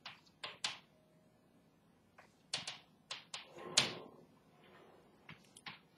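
Chalk tapping and scraping on a chalkboard as words are written: short, sharp clicks in irregular clusters.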